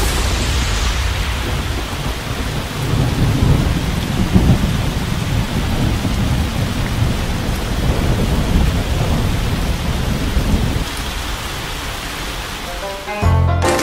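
Rain-and-thunderstorm sound effect: a steady hiss of heavy rain with low rolling thunder, strongest about four seconds in. Music starts just before the end.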